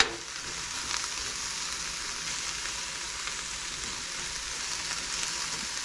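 Sliced mushrooms and onions sizzling steadily in a cast-iron skillet as they sauté without oil, cooking in their own moisture, stirred with a plastic spoon. A short knock is heard right at the start.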